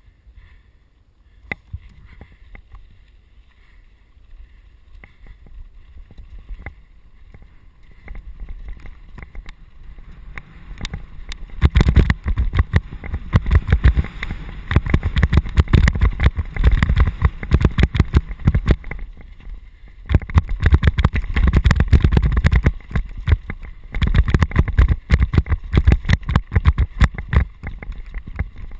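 Mountain bike riding over a rocky dirt trail: tyres crunching on loose stones with a dense rattle and clatter of the bike over a low wind rumble. Only scattered clicks at first, then much louder and busier a little before halfway.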